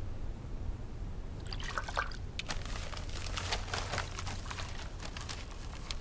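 Water splashing and trickling in a quick run of small splashes, starting about a second and a half in and lasting about four seconds.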